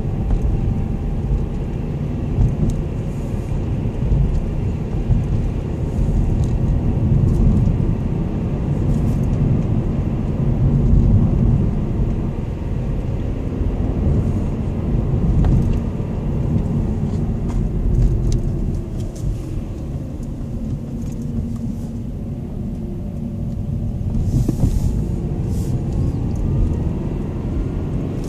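Car cabin noise while driving: a steady low engine and road rumble, with a faint whine that slides up and down in pitch a few times as the car's speed changes.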